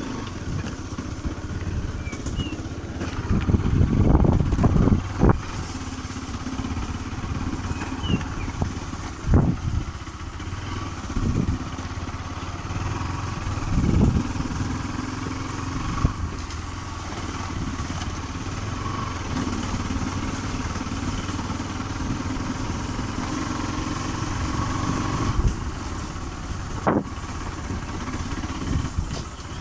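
Motorcycle engine running steadily while riding over a rough dirt trail, with several thumps and knocks from the bike jolting over bumps, the loudest about four seconds in.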